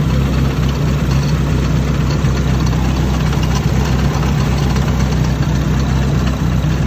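Nissan 180SX engine idling steadily, heard in the engine bay while an unexplained abnormal noise from it is being tracked down.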